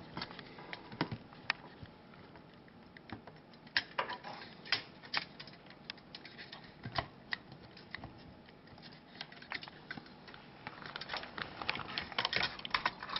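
Scattered small clicks and taps of hands handling a CPU cooler and motherboard parts, coming faster over the last two or three seconds.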